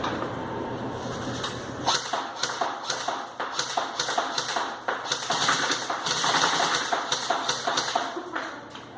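Airsoft M4 rifle firing a string of single shots: short sharp taps, roughly two to three a second.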